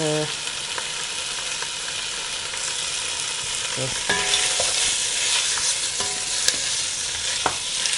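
Lamb pieces sizzling in oil as they brown in a pot with onion, garlic and whole spices, stirred with a wooden spoon, with a few light knocks of the spoon.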